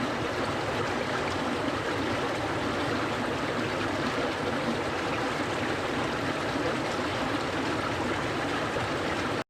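Clear stream flowing steadily, an even rush of running water, cutting off abruptly at the end.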